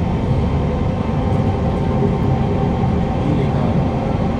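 Cabin running noise of a Kawasaki Heavy Industries C151 metro train (GTO-VVVF variant) travelling at speed, heard from inside a motor car: a steady rumble of wheels on rails.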